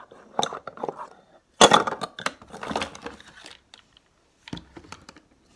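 Rummaging through a kitchen drawer for a tablespoon: metal cutlery and utensils clattering and clinking, with the loudest rattle about a second and a half in.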